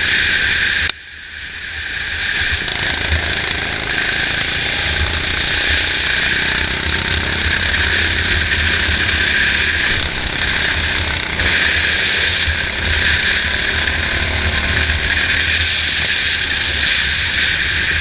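Go-kart engine running hard on track, heard from on board with rushing air noise over the camera. About a second in the sound drops away suddenly and then builds back up, and it stays loud and steady from there on.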